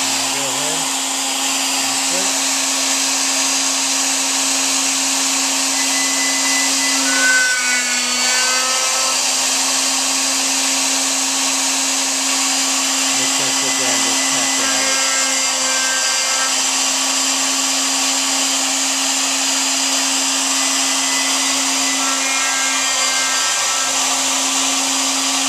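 Router spindle on a CNC router table running at speed: a loud, steady high-speed motor whine with a dense hiss over it. Its pitch dips briefly about seven seconds in and wavers a couple of times later, as under load while the bit drills a hole.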